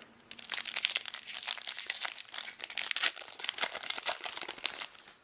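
Trading card booster pack wrapper crinkling and tearing as it is torn open by hand, a dense rapid crackle lasting nearly five seconds and stopping just before the end.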